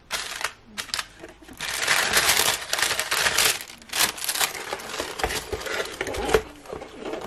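Paper, card and plastic sleeves rustling and crinkling as they are pushed down into a cardboard box. The cardboard lid is then closed with two dull thumps near the end.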